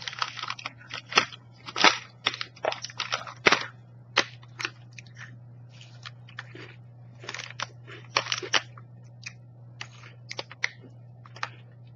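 Someone chewing crisp brownie brittle close to the microphone: irregular sharp crunches, thickest in the first few seconds and again later on. A low steady hum runs underneath.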